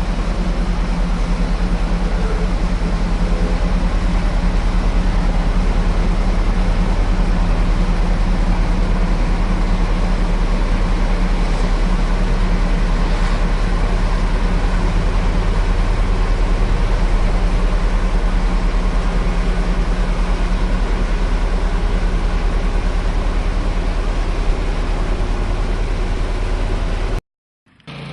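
Tractor engine running steadily at a constant speed, with a deep, even low drone. It cuts off abruptly near the end, and a quieter engine sound starts just after.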